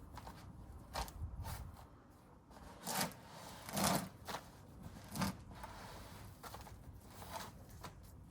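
Hands digging and rummaging through damp potting soil in a potato grow bag: irregular rustling and scraping, with a few louder scrapes around the middle.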